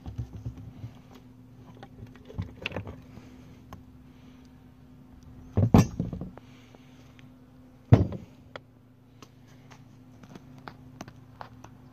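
Metal clunks and clinks as a lawnmower transaxle's cast case is pulled apart and its halves handled, with two louder knocks past the middle.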